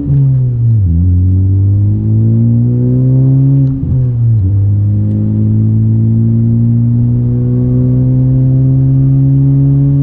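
Honda Civic Type R FK8's turbocharged 2.0-litre four-cylinder, fitted with a J's Racing 70RS cat-back exhaust and RV6 front pipe, heard inside the cabin. The engine note climbs with revs and drops at gear changes just before one second in and at about four seconds, then settles into a steady cruising note.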